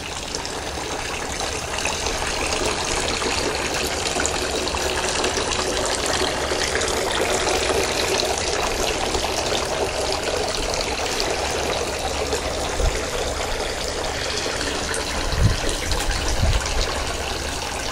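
Garden fountain splashing in a steady, continuous rush of falling water, with a few low bumps near the end.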